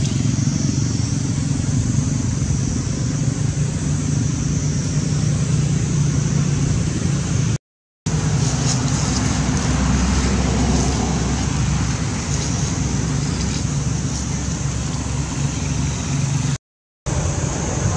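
Steady low outdoor rumble with a steady high hum above it; the sound cuts out completely twice for a moment, about eight seconds in and near the end.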